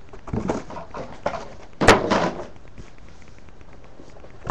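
A single sharp bang about two seconds in, louder than anything else, among a few fainter knocks and rustles.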